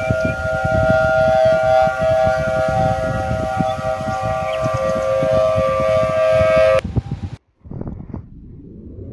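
A siren-like wail of several steady held tones over a rough low rumble, cutting off abruptly about seven seconds in. After a brief silence, a new wail begins rising steadily in pitch near the end.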